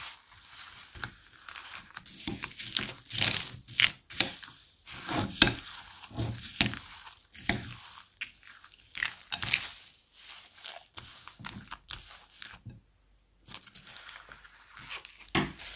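Slime packed with foam beads being stirred with a spoon and kneaded by fingers: irregular crunching and crackling, the beads popping and squishing, with a brief pause about thirteen seconds in.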